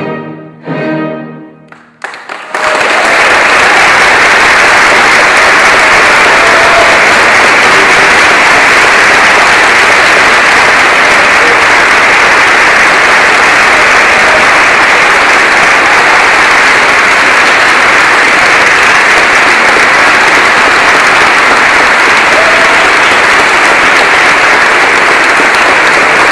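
The last notes of a classical piece sound over the first two seconds. From there, a concert audience applauds loudly and steadily.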